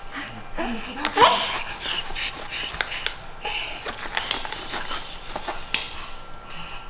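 A dog panting in quick, breathy puffs. A short rising voice sound comes about a second in, and a few sharp taps come through the middle and near the end.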